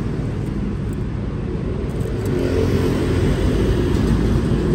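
Rumble of passing motor traffic, a steady low noise that grows louder about two seconds in.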